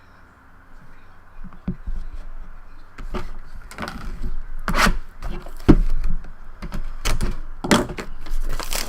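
Cardboard trading-card boxes and their packaging being handled and opened: a string of irregular knocks, scrapes and crinkles that starts about a second and a half in.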